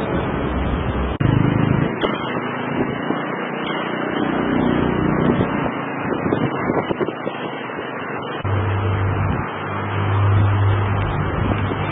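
Road traffic and vehicle engines running, with a low steady engine hum setting in about eight seconds in.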